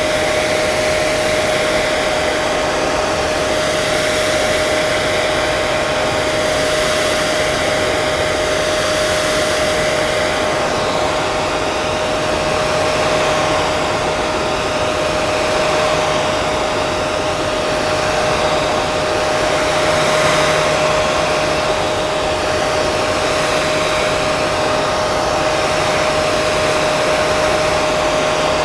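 Electric hair dryer running continuously on a steady setting: a rushing blast of air with a steady motor whine.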